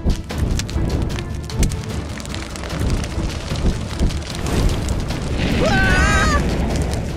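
Background music under a crackling fire sound effect made of many small snaps and pops. Near the end comes a brief wavering high-pitched sound.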